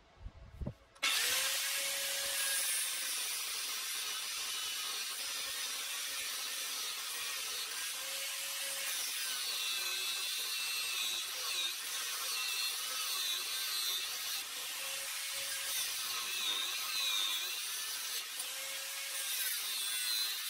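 Parkside PWS 125 E4 angle grinder with a cut-off disc cutting through a steel bar: the grinder starts about a second in, then runs steadily as a high-pitched grinding hiss with a faint wavering whine while the disc bites into the metal.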